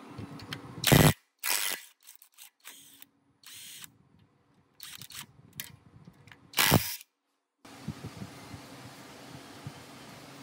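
Short, separate bursts of workshop tool noise, spliced together with stretches of dead silence between them; the two loudest come about a second in and about two-thirds of the way through.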